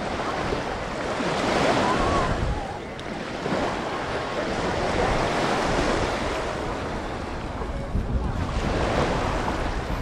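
Sea waves washing onto the beach, swelling and easing about three times, with wind buffeting the microphone.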